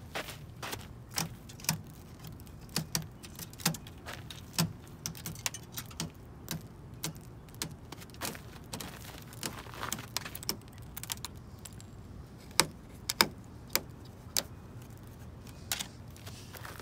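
Footsteps crunching on a thin crust of icy snow over grass: irregular crisp crunches, with a faint low hum underneath.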